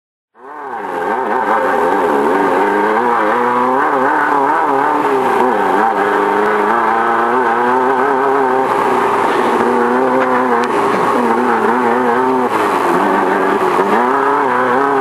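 Off-road race car engine running hard under load, heard from inside the car. It cuts in just after the start, and its pitch rises and falls continually as the revs change.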